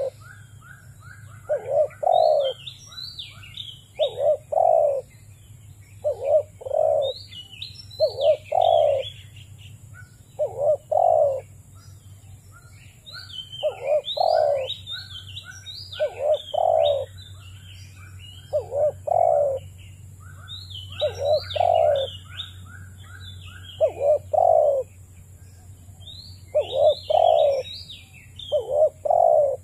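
Spotted dove cooing over and over, a short two-part coo repeated about every two and a half seconds, with small birds chirping and trilling higher above it.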